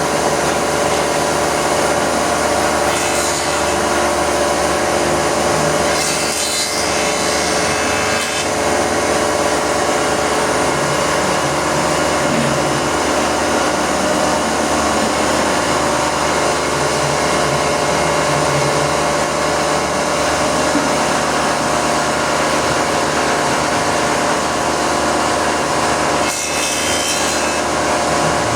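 Wood planer machine running steadily with a constant motor hum, cutting wood, with a few brief louder high-pitched stretches.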